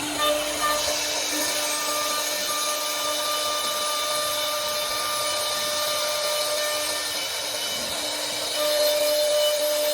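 CNC edge side-drilling machine running: a steady spindle whine over a continuous hiss, with two short knocks about half a second in and a louder stretch near the end.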